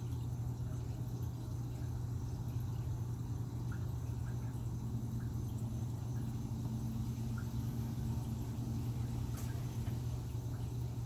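A steady low hum of background machinery. A fainter higher tone joins about five seconds in and fades near the end, and a few faint short ticks are scattered through.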